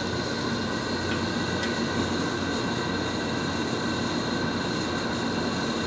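Steady roar of a propane burner heating a large aluminum crab-boil pot. Two faint metal clinks come about a second and a second and a half in, as the perforated basket of vegetables goes down into the boiling water.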